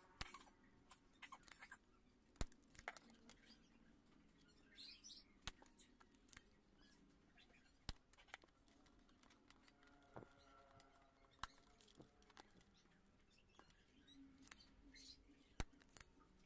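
A spring-loaded desoldering pump (solder sucker) firing again and again, a series of sharp clicks a second or several apart, as solder is sucked from the pins of the TDA2003 amplifier chips to free them from the board.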